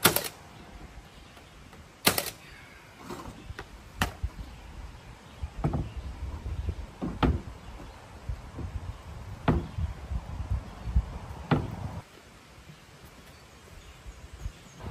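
Sharp wooden knocks and thumps, about one every two seconds, as a small barn-wood access door is fitted and shut in an opening in the cabin's skirting; they stop about twelve seconds in.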